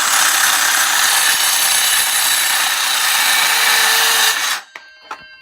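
A power saw cutting through scrap wood with a steady, loud, high noise. This is the heavier comparison saw, which cuts slowly and leaves a splintery cut. The cut stops abruptly about four and a half seconds in.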